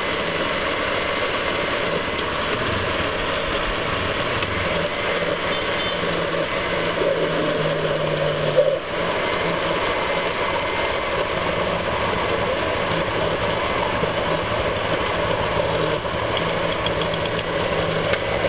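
Countertop blender motor running steadily at high speed, pureeing roasted pumpkin for soup, with a brief dip in the sound about halfway through.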